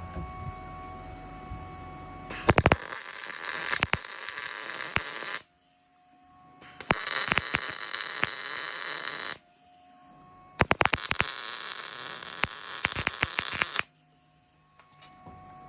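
Electric arc welding: three runs of the arc, each about three seconds long, a steady crackling hiss with sharp pops, stopping cleanly between runs.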